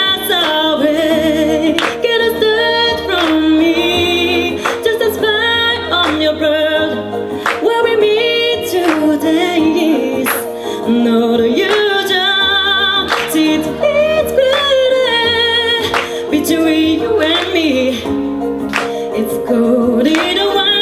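A woman singing live into a microphone, with vibrato on her held notes, over an instrumental backing with a sustained bass and a regular beat.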